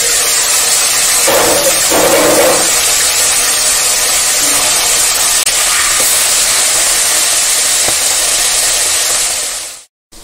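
Pomfret fish frying in hot oil in an aluminium kadai, sizzling steadily as the lid is lifted off. The sizzle cuts off suddenly near the end.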